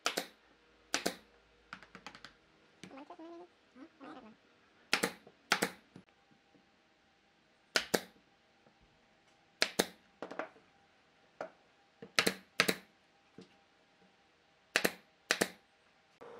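Pneumatic nail gun firing nails into wooden trim: about a dozen sharp shots, mostly in quick pairs, with short pauses between.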